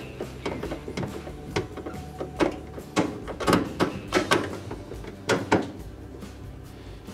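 Nut driver turning 1/4-inch hex screws into a washer's sheet-metal top panel: a run of sharp metallic clicks and ticks, thickest in the middle few seconds.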